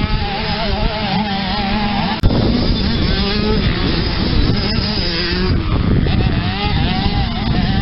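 Motocross bike engines revving hard under load as the riders climb a steep dirt hill, the pitch rising and falling. There is a sharp click about two seconds in.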